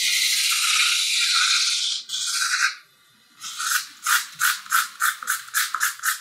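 Marker scratching on flip-chart paper: one long stroke of about two seconds, a shorter one, then quick back-and-forth hatching strokes, about three or four a second.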